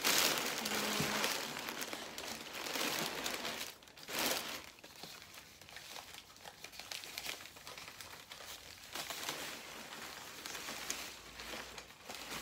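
Packing paper crumpling and rustling as a potted hoya is unwrapped by hand from its paper wrapping in a cardboard box, loudest at the start and again about four seconds in.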